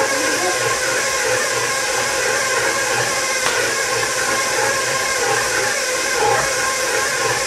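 KitchenAid stand mixer running steadily on its second-lowest speed, its dough hook kneading bread dough.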